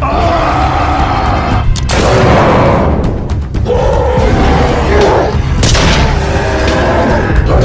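Dramatic soundtrack music over a heavy, steady bass, struck by several booming hits, with a voice crying out between them.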